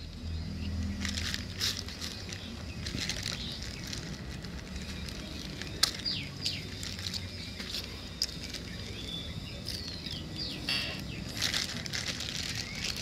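Thin plastic bag worn as a glove rustling and crinkling in irregular bursts as the hand rolls balls of rum-ball dough in chocolate sprinkles, over a low steady hum.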